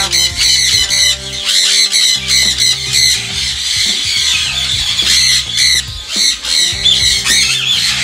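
Sun conures screeching: a rapid run of short, shrill calls, one after another, with no break. Background music with steady low notes plays beneath.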